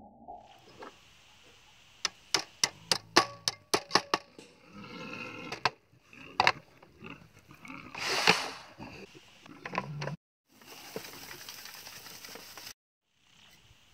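A hand tool knocks sharply into the ground about ten times in two seconds while a foot snare is being set, then strikes once or twice more. There is a burst of scraping as soil and straw are dug out. The sound cuts out briefly twice near the end.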